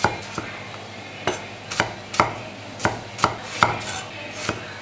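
Chinese cleaver cutting tomatoes into roll-cut chunks on a round wooden chopping block: sharp knocks of the blade on the wood, about two a second and unevenly spaced.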